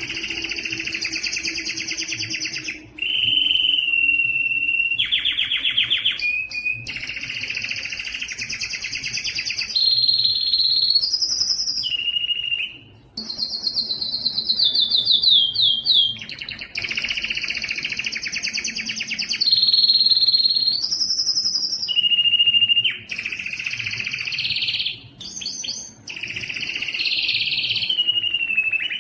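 Spanish timbrado canary singing a long, continuous song of fast trills and rolls, held notes and pitch glides, switching phrases every one to three seconds with only brief pauses.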